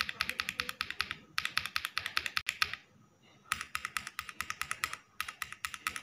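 Typing on a mechanical keyboard fitted with Zuoce switches, first Litchi Milk tactile, then Water Green linear: rapid runs of keystrokes in four bursts, with short pauses between them.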